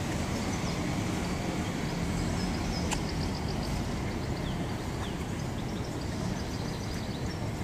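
Steady city background noise: a low rumble of traffic with faint bird chirps, and a single sharp click about three seconds in.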